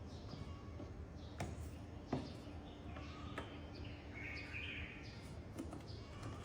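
A few faint clicks of a screwdriver working the screws of a plastic engine air filter housing cover, over a low background hum, with a brief chirp about four seconds in.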